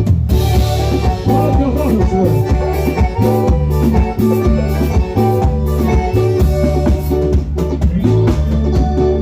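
A band playing a Latin-style song with a steady drum beat, a strong bass line and pitched melody instruments.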